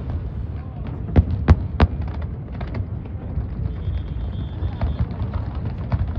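Fireworks bursting: three sharp bangs in quick succession a little over a second in, then a few fainter pops, over a steady low rumble.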